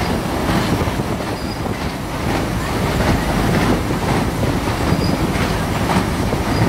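Miniature railway train running through a tunnel, heard from inside a passenger carriage: a steady rumble and clatter of wheels on the rails, with a couple of faint, brief high squeals.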